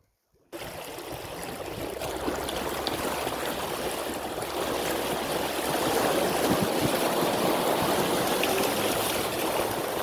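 Steady rush of water that starts abruptly about half a second in and grows a little louder.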